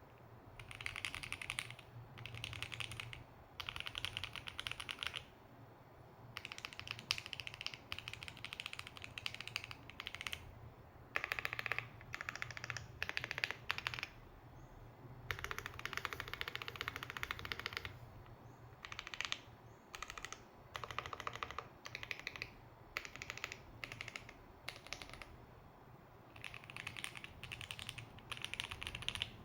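Glorious GMMK Pro mechanical keyboard with Lynx linear switches and Lelelab crystal keycaps being typed on: quick runs of keystrokes, each a second or two long, with short pauses between them.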